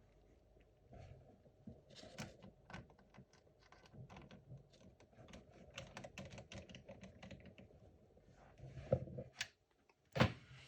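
Faint, quick light clicks and taps of a small screwdriver and screws being worked into a laptop's plastic case, with a few louder knocks near the end.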